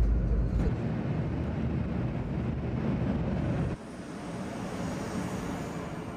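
Shinkansen bullet train running at speed, heard from inside the cabin as a steady low rumble and rush. About four seconds in it cuts to the lighter hiss of the Hello Kitty Shinkansen, a 500 series train, gliding along a station platform, fading near the end.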